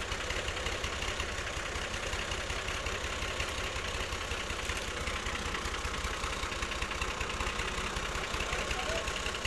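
Fiat 480 tractor's three-cylinder diesel engine idling steadily.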